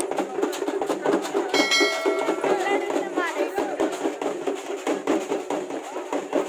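Drums beaten fast and without a break, mixed with the voices of a crowd, and a brief held tone about a second and a half in.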